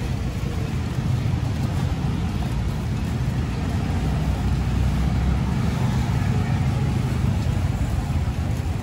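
Steady low engine rumble of nearby road traffic, swelling slightly around the middle.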